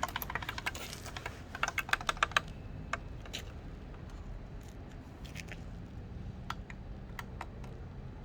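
Rapid runs of light, sharp clicks, like fast tapping, during the first two and a half seconds, then a handful of scattered single clicks.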